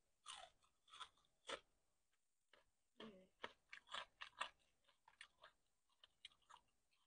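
Close-up chewing of crispy Popeyes fried chicken: sharp crackling crunches of the breaded skin come in quick clusters, with a short lull about two seconds in.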